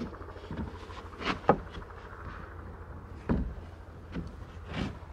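2x6 wooden boards being handled and laid down on an OSB plywood deck, giving a few scattered wooden knocks and thuds, the sharpest about a second and a half in and another just past three seconds, over a low steady rumble.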